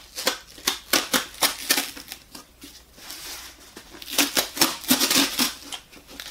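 Corrugated cardboard book mailer being torn open by hand along its pull tear strip: a run of sharp crackling rips, a lull in the middle, then a denser burst of ripping from about four seconds in.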